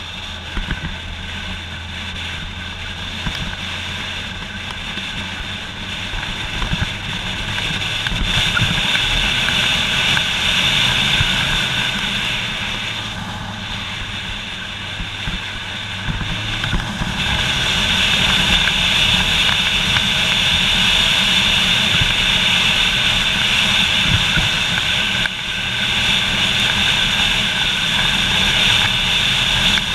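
Motorcycle engine running on the move, with wind rushing over the rider-mounted camera. It gets louder about eight seconds in and again from about seventeen seconds, with two short dips in between.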